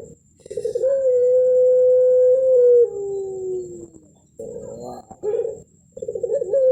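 Puter pelung dove cooing: a short stuttering opening, then one long held note that drops in pitch at its end, and about six seconds in the call starts again. This is the long 'melung' coo with a thick ending that the bird is bred and judged for.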